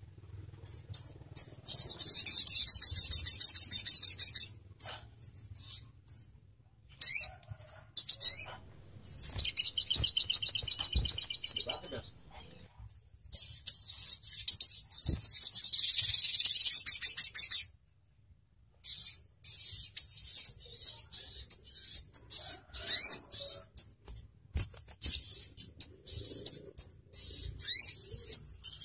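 Olive-backed sunbird (sogon ontong) singing: high-pitched rapid trilled bursts of a few seconds each, broken up by short sharp chirps and quick rising notes, with a brief pause about eighteen seconds in.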